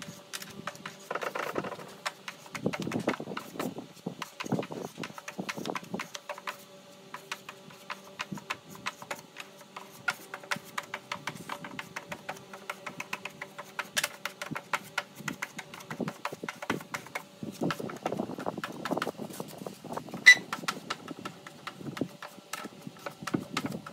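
Body filler on a car door being hand-sanded with a sanding block: groups of scratchy back-and-forth strokes with many small clicks, over a faint steady hum. One sharp click about twenty seconds in is the loudest sound.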